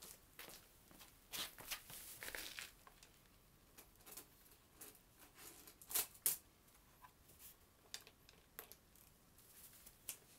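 Hands scraping, rustling and knocking on a stopped chainsaw as it is cleaned, with two sharp clicks close together about six seconds in.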